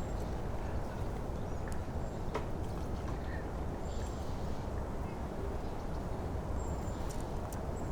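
Early-spring forest ambience: a steady low rushing background with a few brief, high, thin bird chirps and scattered faint clicks.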